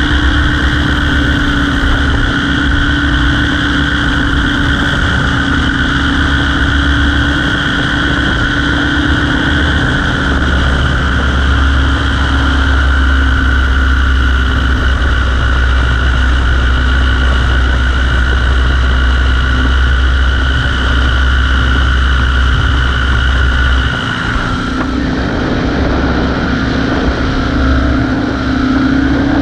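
Light propeller aircraft engine running steadily under power, with a steady low rumble and a droning whine. The low rumble drops away about 25 seconds in.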